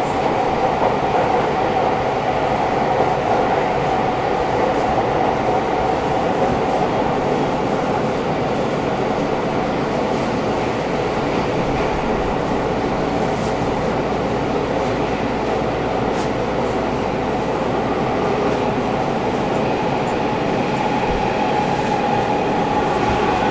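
Interior running noise of a Sendai Subway 1000N series train under way in a tunnel: a steady rumble and rattle of wheels on rail. A tone becomes stronger near the end.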